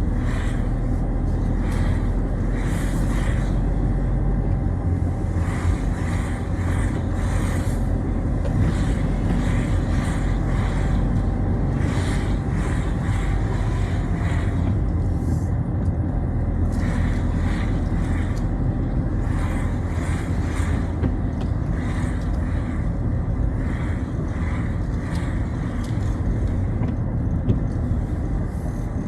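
Citroën Xsara driving on a wet road: a steady low engine and road rumble, with frequent short hisses of tyre spray.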